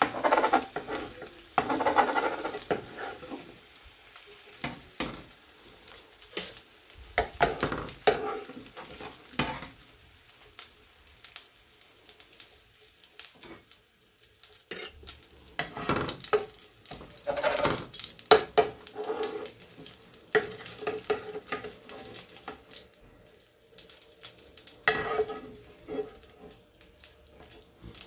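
Eggs sizzling in oil in a frying pan, with a metal ladle scraping and knocking against the pan at irregular intervals as the eggs are lifted out.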